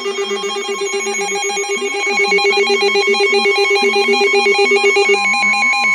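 Electronic emergency-alert attention tones. A rapidly pulsing, ringing tone like a telephone trill sounds over a lower wavering tone. About five seconds in, the trill stops and a steady higher alert beep takes over.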